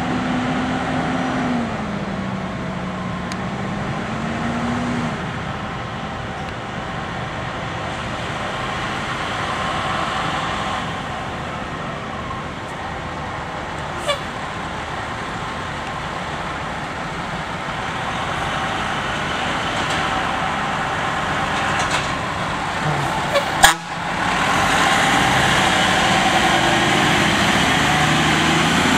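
Fire engine's diesel engine running at idle, its pitch dipping and rising again in the first few seconds. A sharp click comes a little before the engine grows louder as the truck pulls away and drives past close by.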